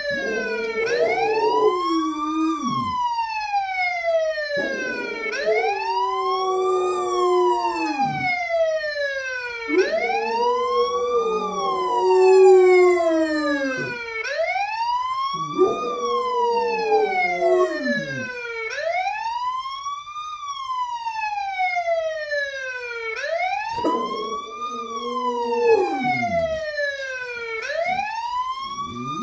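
A wailing emergency siren, rising and falling about every five seconds, with a rottweiler howling along to it in five long howls, each sliding down in pitch at its end.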